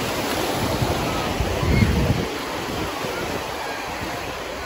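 Small waves breaking and washing over sand in shallow sea water at the shoreline. Wind buffets the microphone in a low rumble about a second and a half in.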